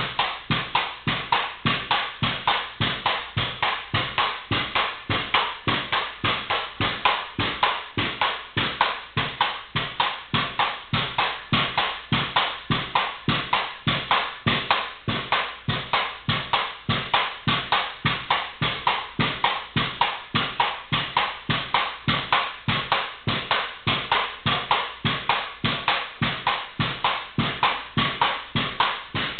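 Pogo stick bouncing continuously on a concrete floor: a steady rhythm of sharp knocks, about three a second.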